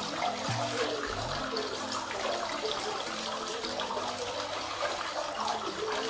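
Water from a small tiered cement fountain pouring from a teapot spout and splashing steadily down three bowls into a plant-filled basin.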